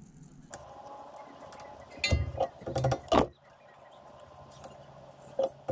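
Light metallic clicks of needle-nose pliers handling a steel cotter pin in a castle nut on a tie-rod end, over a faint steady hum. A few short voice sounds come about two to three seconds in.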